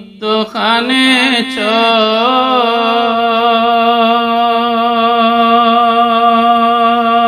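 Man singing an Islamic gojol (devotional song) in Bengali. After a brief break he sings a short ornamented run, then holds one long note. A steady low drone sounds underneath.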